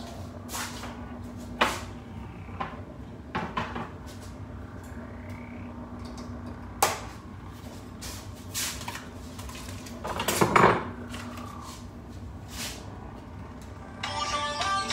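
Cookware and utensils clattering at a stove: scattered knocks and clinks of pans and cutlery, the loudest cluster about ten seconds in, over a steady low hum.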